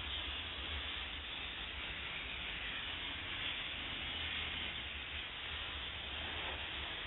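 Steady hiss of steam jetting from a steam cleaner's hand wand onto car paint, with a low hum underneath.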